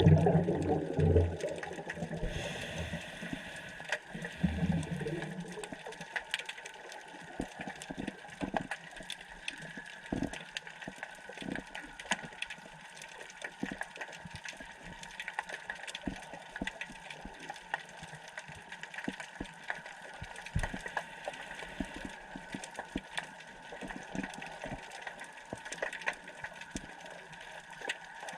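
Underwater sound of a scuba dive: a burst of the diver's exhaled regulator bubbles at the start and a shorter one about four seconds in, then a faint bed of scattered sharp clicks and crackles.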